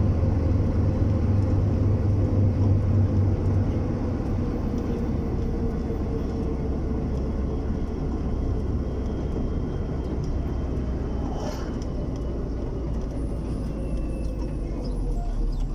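Car driving along a paved road: steady engine and tyre noise, dropping a little about four seconds in.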